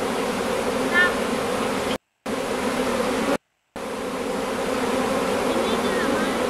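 Honeybee swarm buzzing in a steady, dense hum as the bees move into a hive. The sound cuts out completely for a moment twice, about two and three and a half seconds in.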